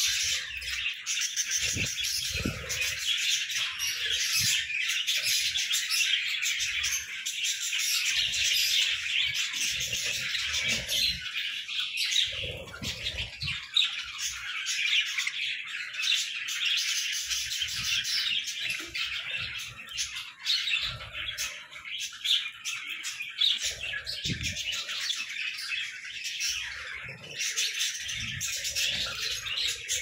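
A flock of budgerigars chattering and chirping all together in a dense, continuous warble, with occasional soft low thumps among it.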